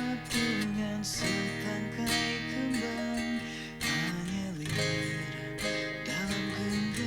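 Music led by acoustic guitar strumming chords, with a melodic line gliding over it.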